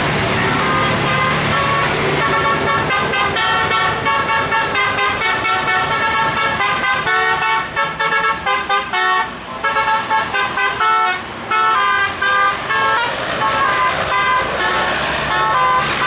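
A bus's Basuri telolet musical air horn playing a quick tune of short stepped notes over the bus engine's hum, with brief pauses about nine and eleven seconds in.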